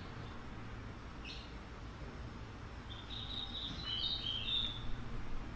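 A bird chirping: a brief call about a second in, then a quick run of high chirps from about three to five seconds in, over a low steady hum.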